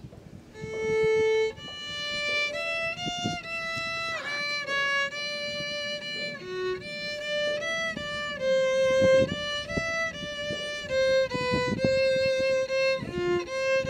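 Solo violin playing a melody of held notes, with slides between some of them, starting about half a second in.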